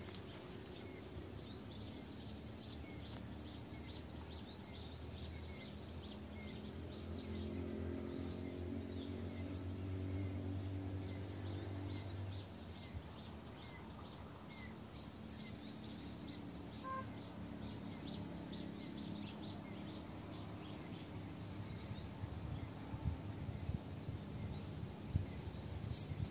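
Quiet forest ambience: a faint high chirp repeating about every two-thirds of a second, with a low drone that swells and fades in the middle. Rustling and short knocks come near the end.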